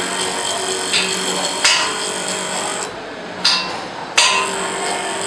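Tap re-sharpening grinding machine's abrasive wheel grinding the flutes of a threading tap, over a steady motor hum. The grinding hiss surges sharply four times and eases briefly around the middle.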